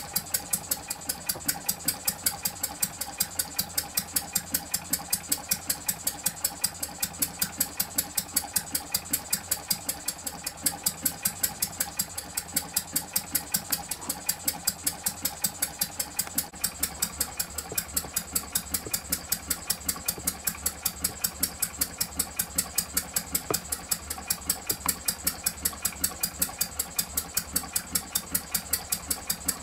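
Home-built twin-cylinder model hot-bulb semi-diesel engine (20 mm bore, 36 mm stroke) running on kerosene, idling with an even, steady beat of about three sharp strokes a second.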